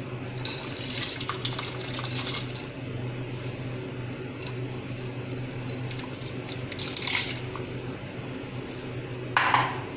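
Washed chana, moong and masoor dal poured into a pot of boiling water: a hissing splash lasting about two seconds, then the water bubbling with small pops and a second brief splash. A short ringing clink near the end.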